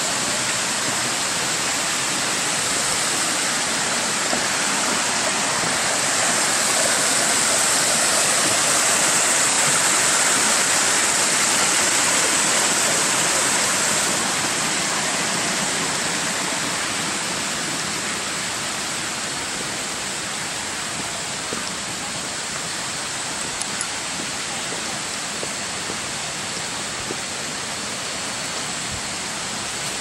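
Steady rush of water from the Kuang Si Falls cascades, swelling a little a fifth of the way in and easing slightly over the second half.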